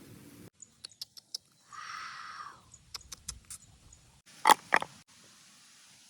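A string of small sharp clicks and taps, a short scraping rustle, more taps, then two loud sharp knocks about a quarter second apart.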